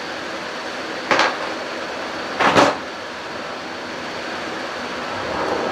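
Tools being handled in a socket tray on a workbench: two short clattering rattles, about a second in and again, louder, about two and a half seconds in, over a steady background hiss with a faint high whine.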